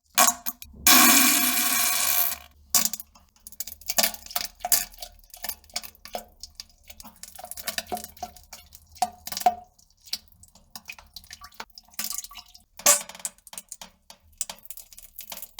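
Poop and fart sounds: a long noisy fart about a second in, then a string of short wet plops and splashes into water, with another brief burst near the end.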